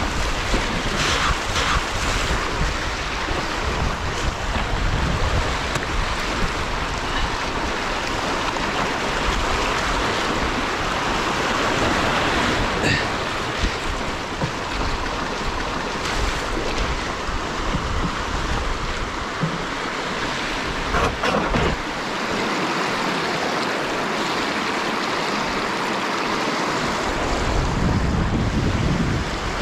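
Shallow river rapids rushing steadily around a canoe, with a few short knocks. Near the end there is a low rumble of handling on the microphone.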